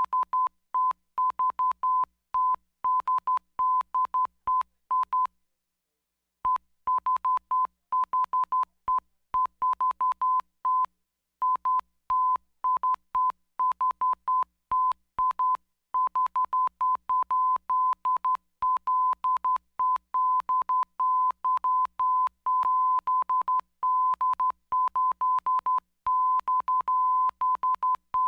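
Morse code telegraph tone: a steady beep keyed on and off in short and long pulses, sending SOS. There is a break of about a second early on, after which the keying runs on with more long pulses.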